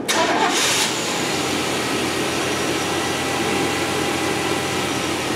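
1998 Chevy 2500 pickup's 5.7-litre V8 starting up on a freshly fitted serpentine belt: it catches at once, flares briefly in the first second, then settles into a steady idle.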